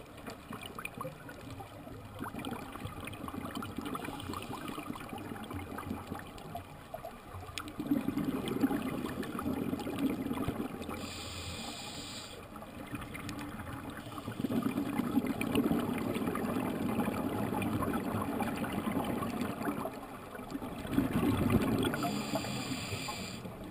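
Scuba diver breathing through a regulator underwater: a short hiss on each inhale, about halfway through and again near the end, and a longer bubbling rush of exhaled bubbles between the breaths.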